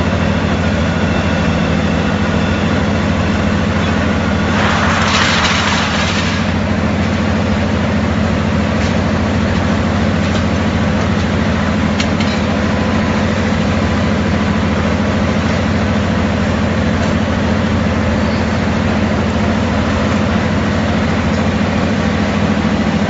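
Steady, loud drone of a steel rebar hot rolling mill's cooling bed and roller-table machinery, with a low hum running under it. About five seconds in, a hissing rush rises over it for roughly two seconds.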